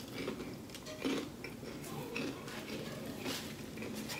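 Quiet eating sounds from fried chicken being eaten by hand: a few soft clicks and mouth smacks with light handling noise between them.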